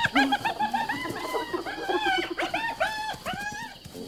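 Spotted hyenas calling while feeding on a kill: a rapid run of short, arching, high-pitched squeals and whoops, with lower quick staccato giggling notes underneath. These are the excited calls of a pack competing over a carcass.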